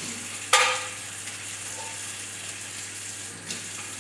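Kitchen tap running steadily into a sink, with one loud splash about half a second in as baking paper is wetted under the stream.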